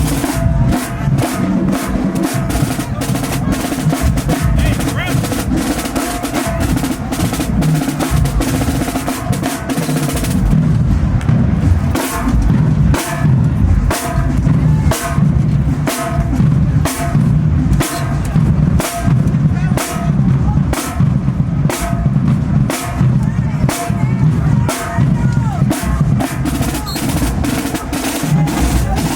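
Marching band drumline playing a march-in cadence, with sharp snare strikes over heavy bass drum hits in a steady driving rhythm.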